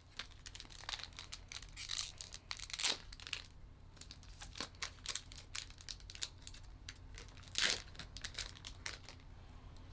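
Foil wrapper of a Pokémon trading-card booster pack crinkling and tearing as it is opened by hand, in faint scattered crackles with a couple of louder ones about three and eight seconds in.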